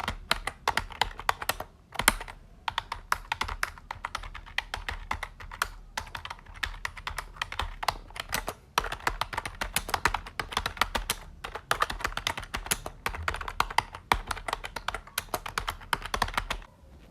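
Fast typing on a computer keyboard: a dense run of key clicks and clacks, broken by brief pauses about two seconds in, near six seconds and near eleven seconds, and stopping shortly before the end.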